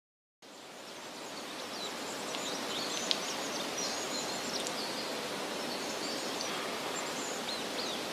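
Outdoor woodland ambience: a steady hiss of open air with many short, high bird chirps, fading in about half a second in, and one sharp click about three seconds in.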